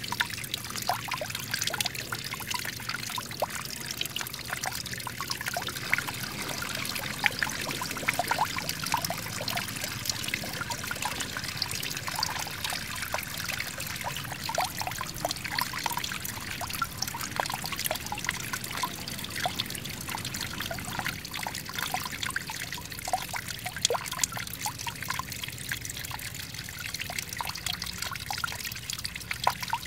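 Small garden waterfall: water pouring from a tipped clay pot and trickling over rocks into a pool, a steady splashing dotted with many small drips.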